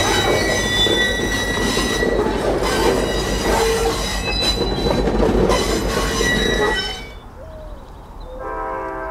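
An F40PHM-2C diesel-electric locomotive and its passenger train rolling by, a heavy rumble with high-pitched wheel squeal from the rails. It cuts off abruptly about seven seconds in. Near the end a locomotive horn starts, a steady chord of several notes.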